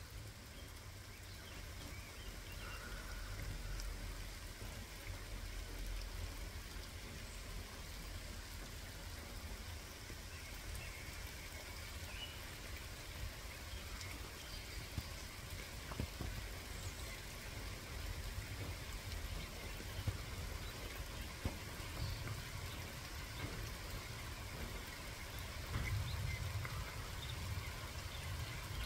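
Steady rain, an even soft hiss with a few sharper drips scattered through it, over a low rumble.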